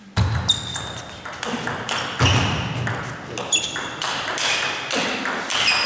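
Table tennis rally: the ball clicking back and forth off the bats and the table in a quick, uneven run of sharp hits.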